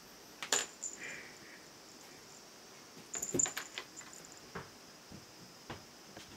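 Light clicks and taps from a cat's paws and claws and a wand toy knocking on a lacquered piano lid as the cat plays: a couple about half a second in, a quick cluster around three seconds in, then a few scattered taps. The sharpest ones have a brief high metallic ring.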